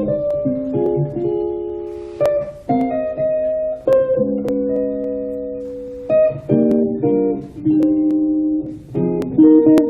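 Guitar playing a slow jazz ballad: plucked chords and single notes, several struck every second or so, each left to ring out.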